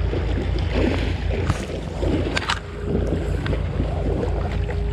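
Water lapping against a plastic sit-on-top kayak hull over a heavy low rumble, with a few sharp knocks about one and a half and two and a half seconds in. A faint steady hum joins from about three seconds in.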